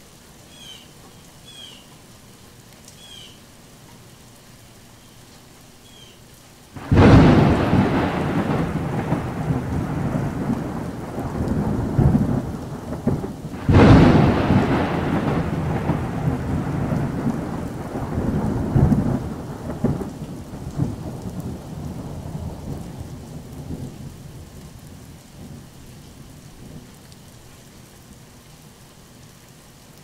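Thunderstorm in the forest: steady rain falling, then two sudden claps of thunder about seven seconds apart, each rolling on in a long rumble that slowly dies away. A few short chirping calls sound over the rain before the first clap.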